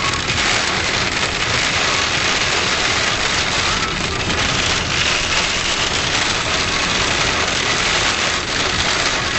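Hail knocking on a surface in a steady, dense patter of many small impacts.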